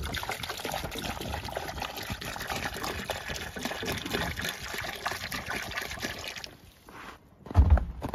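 Water pouring from a large plastic jug into a black waterer pan, a steady splashing stream that stops about six and a half seconds in. Near the end comes a short, dull thump.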